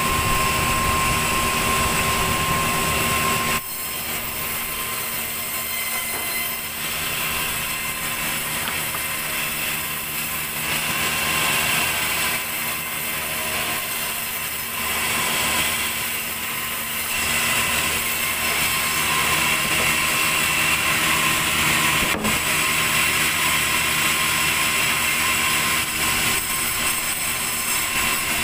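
Large sawmill band saw running and cutting lengthwise through a big log: a steady machine drone with several held tones and a high hiss from the blade. It drops sharply in loudness about three and a half seconds in, and there is a single sharp click a little over twenty seconds in.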